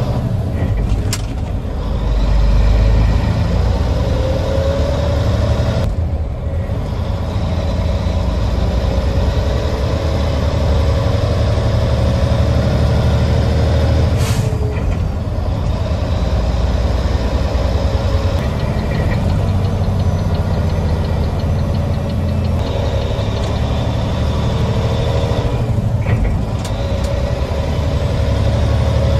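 2004 Volvo VN semi truck's diesel engine running under way, heard from inside the cab along with road noise. The sound dips briefly a few times.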